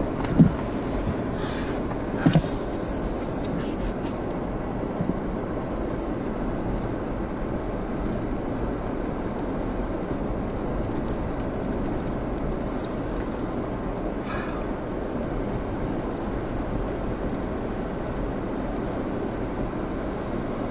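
Steady wind noise rumbling on the microphone, with two brief higher hissing gusts about two and thirteen seconds in.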